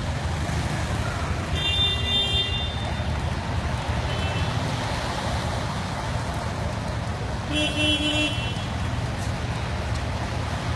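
Road traffic moving through floodwater, a steady low rumble, with two short car-horn toots, about two seconds in and again near eight seconds.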